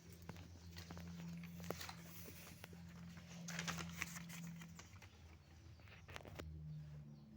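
Small electric sponge-cutting saw of scroll-saw type running with a faint, steady low hum. Irregular scratchy crackles and clicks come over it, thickest around the middle of the stretch.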